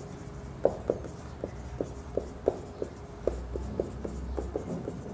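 Marker pen writing on a whiteboard: a run of short, irregular taps and scratches, about three a second, as the letters are written.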